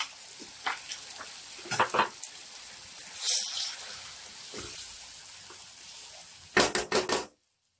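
Pureed tomato sizzling in hot oil and fried spices in a pan while a spatula stirs and scrapes through it. Near the end comes a quick run of louder spatula strokes, then the sound cuts off suddenly.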